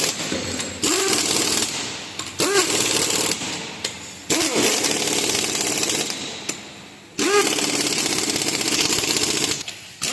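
Pneumatic impact wrench run in five bursts of one to three seconds, each starting suddenly with a brief rising whine and then hammering rapidly. This is the sound of bolts or nuts being run down during reassembly of the front brake.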